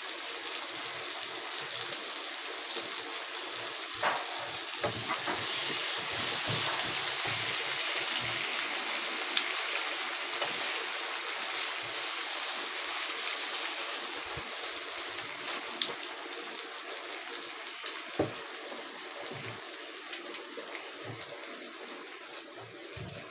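Diced carrots, green beans and onions sizzling in hot oil in a frying pan: a steady hiss that swells a few seconds in and fades gradually through the second half, with a few light knocks of a wooden spatula on the pan.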